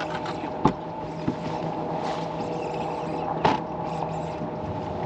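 Steady hum of a bass boat's motor, most likely the bow-mounted electric trolling motor used while fishing. Two sharp knocks on the boat stand out, one under a second in and another about three and a half seconds in.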